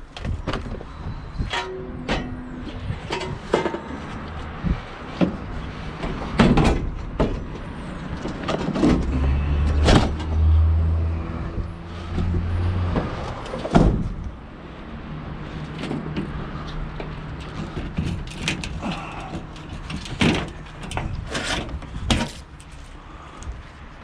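A van's engine running, with repeated knocks and rattles throughout and a heavy low rumble for a few seconds in the middle.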